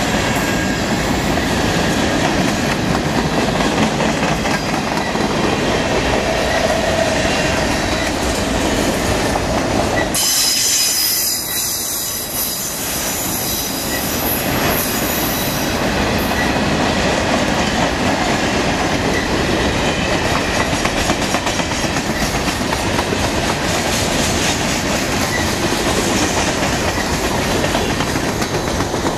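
Freight train cars rolling past close by: a steady rumble and clatter of wheels on the rails. About ten seconds in, the low rumble thins out for several seconds and the sound turns higher and hissier before the full rumble returns.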